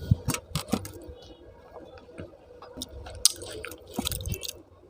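Close-miked eating: wet chewing and squelching of soft food, with many short, sharp mouth clicks.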